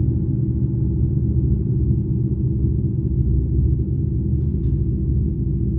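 Ambient drone music from the Lyra sound sculpture: a steady, deep drone of many held low tones, with a couple of faint higher flickers about four and a half seconds in.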